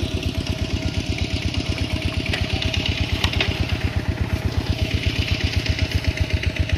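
A small engine running steadily at idle, with a rapid, even pulse.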